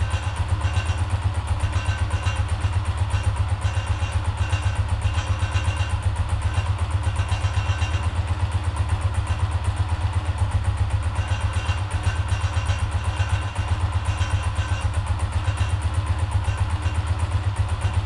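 Honda CGL 125's air-cooled single-cylinder four-stroke engine idling steadily on its stand, an even, rapid low pulse of exhaust beats with no revving.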